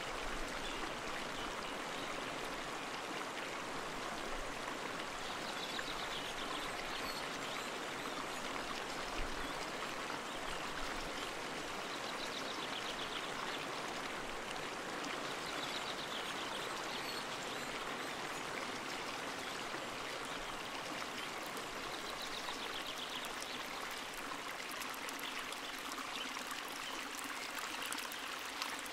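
Steady rush and splash of flowing water, with a faint high trill coming back every few seconds.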